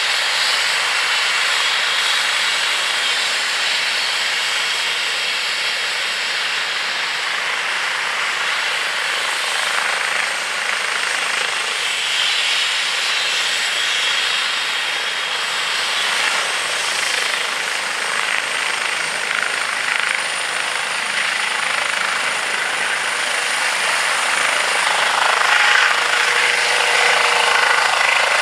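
Airbus (Eurocopter) EC135 twin-turbine helicopter running with rotors turning: a steady high turbine whine over the rotor noise, getting louder in the last few seconds as it lifts off.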